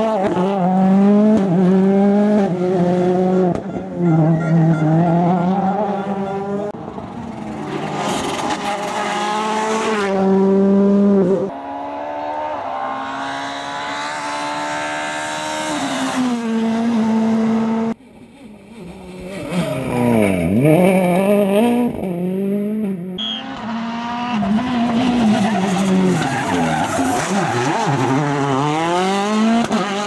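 2013 World Rally Cars' 1.6-litre turbocharged four-cylinder engines revving hard and changing gear through corners. Several cars are heard in turn, with sudden breaks between them. Twice a car's engine note sweeps down in pitch as it passes close by.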